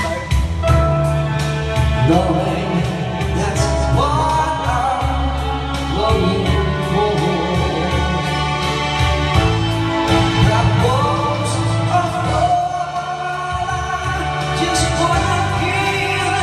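A man singing through a handheld microphone over a music backing track with a steady beat.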